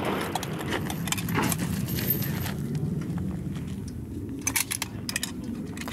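Rifle and shooting gear clinking and rattling as a precision-rifle competitor moves between barricade positions and settles the rifle on a wooden barricade, with a quick cluster of metallic clicks about four and a half seconds in, over a steady low rumble.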